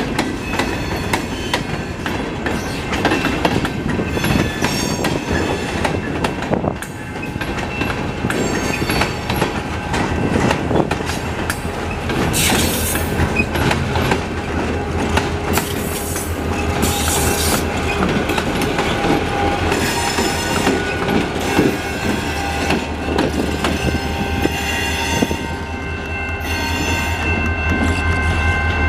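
Freight cars of a train (covered hoppers and high-cube box cars) rolling past slowly. Their steel wheels click over the rail joints, with a metallic rattle and several spells of high wheel squeal. A low steady drone comes in from about halfway through.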